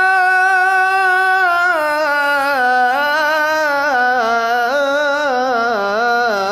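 A man reciting the Quran in Maqam Hijaz, holding one long note on the word al-ahya'. About two seconds in, the note descends in wavering, ornamented steps to a lower pitch.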